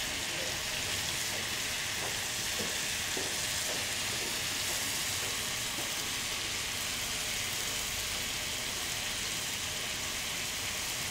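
Marinated chicken tikka pieces and tandoori masala paste frying on high flame in a non-stick pan: a steady sizzling hiss.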